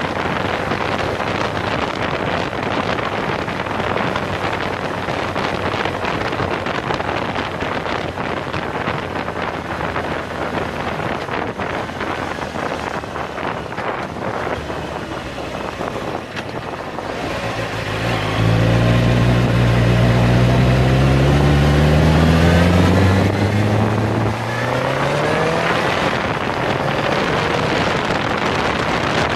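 Wind rushing over the microphone of a moving Suzuki GSX-R600 sport bike, its inline-four engine low underneath. Past the middle the engine note gets louder and rises steadily as the bike accelerates, drops briefly at a gear change, and rises again.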